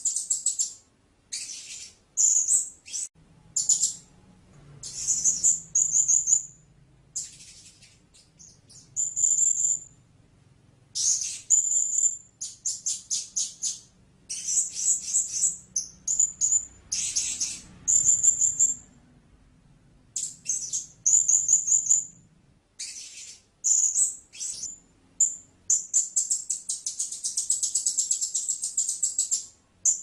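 Blue-crowned hanging parrot calling: high, thin notes given in short groups and quick chattering runs, with pauses between them, then a fast unbroken run of notes near the end.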